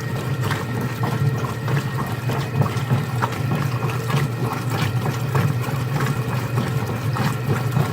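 General Electric top-load washing machine running its wash cycle: a steady low motor hum with a light tick about twice a second.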